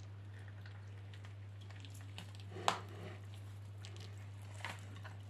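Hands tearing apart a whole smoked chicken, with faint squishing of skin and meat. There is a sharp crack about two and a half seconds in and a smaller one near the end, over a steady low hum.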